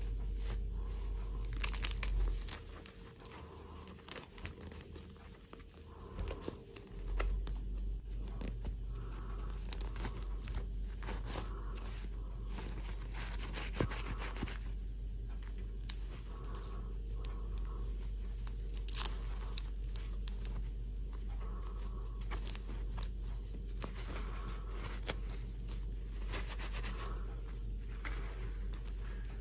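Handling noise of a plastic fashion doll being undressed: its cloth dress rustling and crinkling against fingers, with scattered small clicks and scrapes, over a steady low hum.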